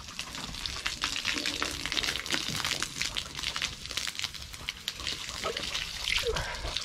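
A stream of water from a garden hose splashing and spattering onto the dirt floor of a chicken run, a steady pattering hiss as the ground is wetted down.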